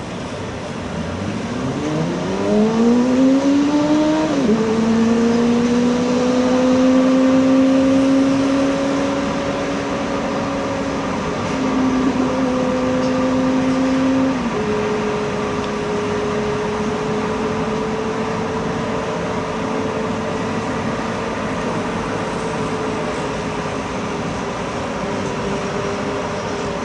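An engine speeding up, its pitch rising steeply for a few seconds, then dropping about four seconds in, like a gear change, and holding a steady drone, over a constant background hiss.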